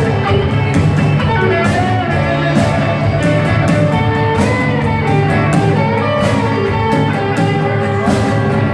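Rock band playing, with guitar over a steady drum beat of about two hits a second.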